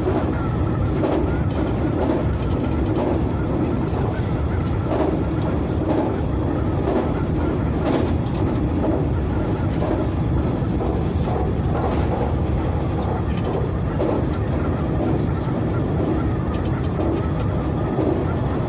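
Hanshin 9300-series electric train running along the line, heard from inside the front car: a steady rumble of wheels on rail with scattered light clicks.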